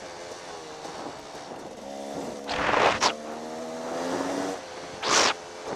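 Dirt bike engine running at part throttle, its revs climbing about two seconds in. Two short bursts of rushing noise cut across it, one about halfway through and one near the end.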